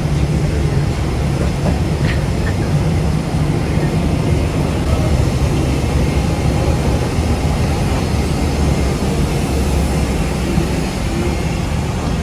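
Steady, deep rumble of engines and rushing air inside a jet airliner's cabin.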